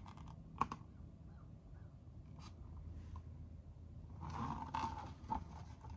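Quiet room tone with a few faint clicks and soft rustling, the sound of a picture book being held up and handled.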